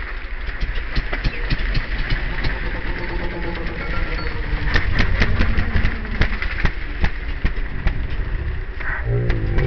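Trials motorcycle engine running at low revs close by, with many irregular clicks and knocks over it. Near the end the engine revs briefly, rising and falling in pitch.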